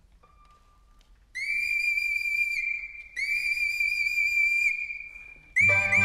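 Koudi, a tiny Chinese bamboo flute, sounding two long, high held notes, then breaking into quick chirping trills in imitation of a skylark's song. The accompanying Chinese ensemble comes in under the trills near the end.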